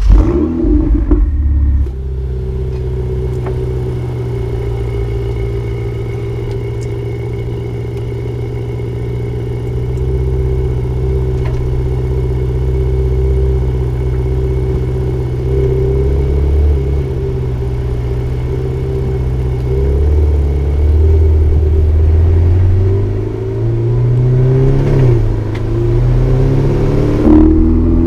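Ferrari 488 Spider's 3.9-litre twin-turbo V8 starting up with a brief loud flare, then settling to a steady idle. Over the last several seconds it revs and pulls away, the engine pitch rising, dipping briefly, and rising again.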